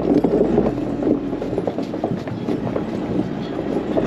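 Truck rolling slowly over snow and frozen ruts, with a steady clatter of loose metal clanking and rattling over the running engine. The low engine rumble drops away a little under a second in, as the truck eases off.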